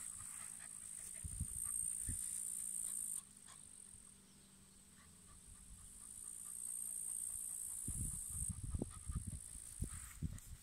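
A dog sniffing and nosing at the ground in grass: soft thuds and rustling, busiest about eight seconds in. Behind it a high-pitched insect buzz stops abruptly about three seconds in and comes back a few seconds later.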